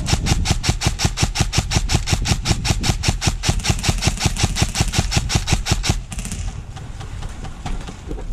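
Airsoft automatic rifle firing a long full-auto burst: a rapid, even string of shots, several a second, that stops about six seconds in.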